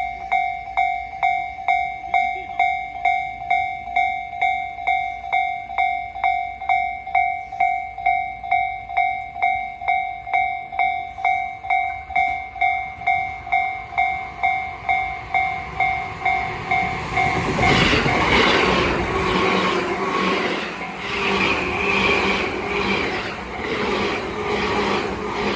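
Japanese level-crossing warning bell dinging about twice a second. About two-thirds of the way in, a Tobu 9000-series electric train (set 9103F) passes through the crossing, its wheels clattering over the rail joints and drowning out the bell.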